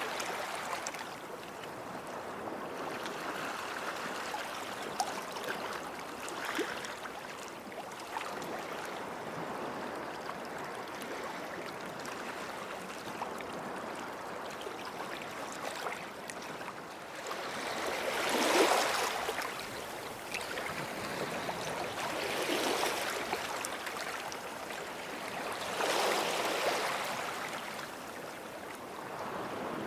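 Small sea waves washing onto a sandy shore, a steady wash with a few louder surges as waves break, the biggest a little past the middle.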